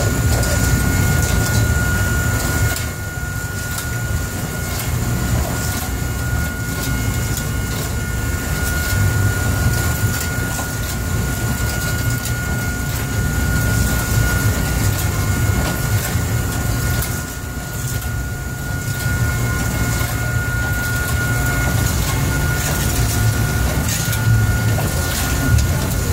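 Steady drone of a longline fishing boat's engine and hydraulic machinery, with a constant thin high tone over it and scattered light metallic clicks from the longline snaps being handled on their rail.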